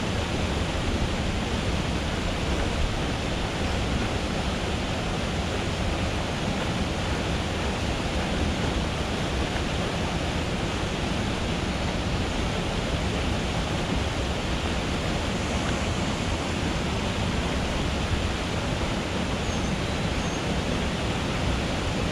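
Steady rush of a small creek cascade pouring over rock into a pool, an even, constant water noise.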